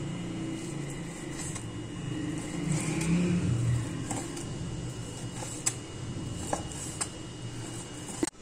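Chef's knife cutting raw chicken breast on a wooden cutting board, the blade tapping the board a few times in the second half, over a steady low rumble that swells about three seconds in.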